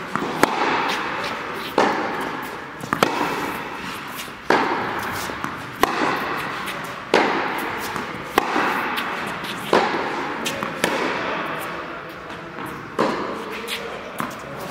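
Tennis rally: a ball struck back and forth by rackets, sharp hits about every 1.2 to 1.5 seconds, each with a long echo from the large indoor hall, and lighter knocks between them.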